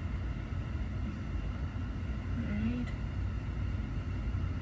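Steady low rumble and hiss of background room noise, with a brief short hum of a voice about two and a half seconds in.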